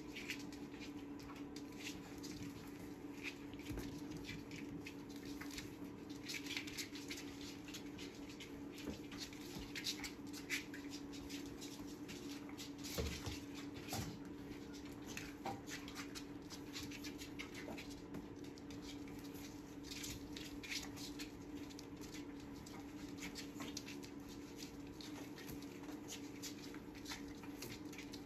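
Catalan sheepdog puppies scuffling around a wicker dog basket, their claws pattering and clicking irregularly on a laminate floor and the wicker, over a steady low hum.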